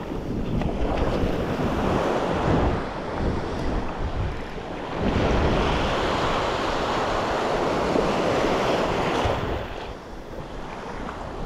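Sea surf washing onto a beach, with wind buffeting the microphone; the wash swells about five seconds in and eases off near the end.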